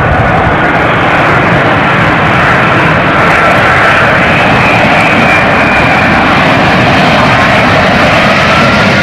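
Airbus A380 jet engines, a loud, steady roar with faint whining tones drifting slightly in pitch.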